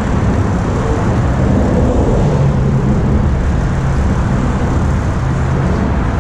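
Small boat outboard motor running steadily at low speed, a constant low hum.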